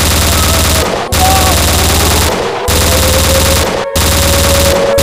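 Automatic rifle fire sound effect: long, rapid bursts of about a second each, with brief breaks between them. A thin, steady high tone runs underneath from about halfway through.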